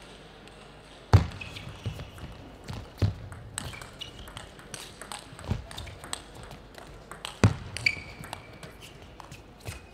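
Table tennis ball clicking sharply against the table and bats, about seven separate knocks spaced irregularly one to two seconds apart, the loudest about a second in. A few short high squeaks come between them.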